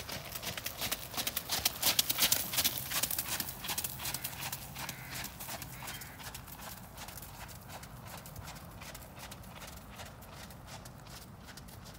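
Horse's hoofbeats on a wet gravel arena surface, a quick, even run of strikes that is loudest about two seconds in as the horse passes close, then fades as it moves away.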